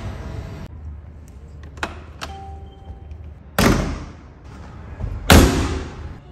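Two heavy thunks of a Mercedes-AMG G63's body panels being shut, about two seconds apart, the second the loudest, with a few lighter latch clicks before them.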